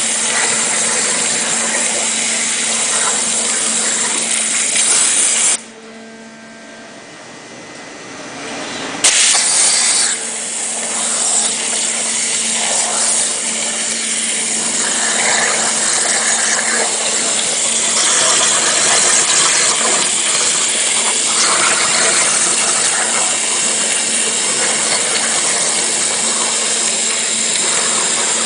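Water-jet cutting machine's high-pressure jet cutting a panel: a loud, steady hiss with a constant hum beneath it. About five and a half seconds in the hiss stops abruptly for about three and a half seconds, then starts again with a sudden burst and runs steadily on.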